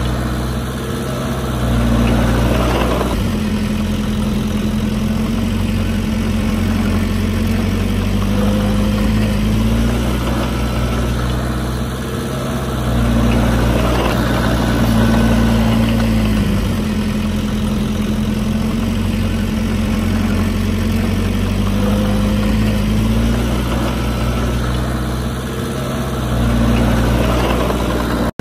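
Heavy earthmoving machine's diesel engine running continuously. Its note sags and recovers under load in a cycle that repeats about every twelve to thirteen seconds.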